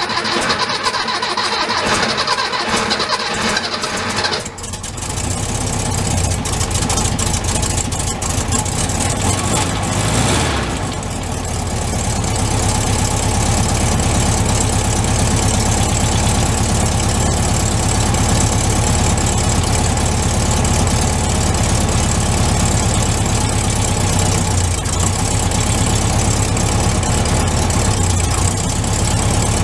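1964 VW Beetle's 1500cc air-cooled flat-four engine running, its sound changing twice in the first eleven seconds before settling into a steady idle with an even low pulse. The engine is being run to check that the freshly resealed valve covers no longer leak oil.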